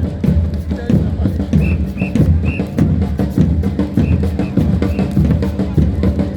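Drum-led music with a steady, busy beat of bass drum and snare strikes, and a few short high notes sounding briefly a couple of times.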